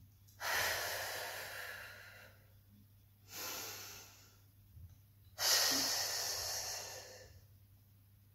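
A woman's deep, audible Pilates breathing: three long breaths, each starting sharply and fading away, paced with the torso rotations. The third, about five seconds in, is the loudest.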